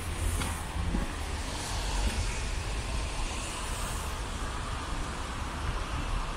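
Steady city street traffic: a constant low rumble and hiss of passing vehicles.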